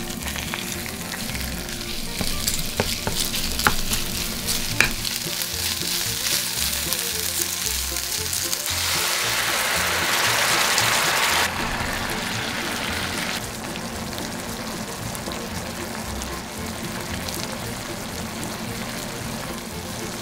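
Chicken pieces frying in oil and chili sauce in a nonstick frying pan: a steady sizzle, with a few sharp utensil taps against the pan early on. A louder stretch of sizzling comes about nine seconds in and drops off abruptly a couple of seconds later.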